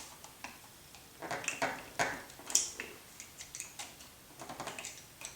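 Light clicks and small plastic-and-metal rustling from hands working an RC helicopter's motor mount. The clicks come as a quick run of sharp ticks in the second half, while the electric motor is pushed back toward the main gear.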